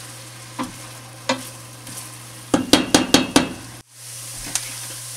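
Diced onion sizzling in butter in a stainless steel pot, sautéing until translucent, while a wooden spoon stirs and scrapes it. The spoon knocks on the pot a few times, with a quick run of four or five knocks around the middle.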